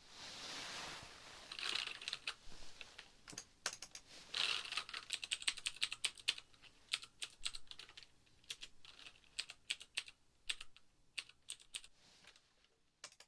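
An irregular run of light, sharp clicks and taps, with soft brushing swishes near the start and about four seconds in; the clicks thin out and stop near the end.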